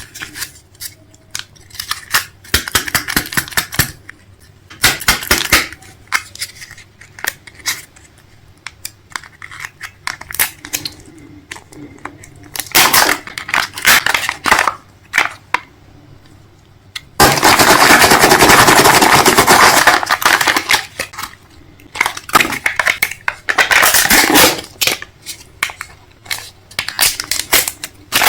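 Rapid, irregular clicks and clattering from hard objects being handled, with a loud continuous hissing noise lasting about three seconds past the middle.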